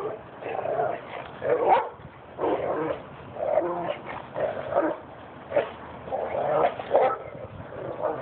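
Dogs barking and yipping in play, about ten short barks spaced roughly a second apart.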